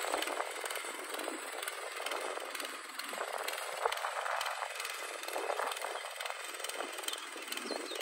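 Small engine of a walk-behind motor cultivator running steadily while it ploughs a furrow.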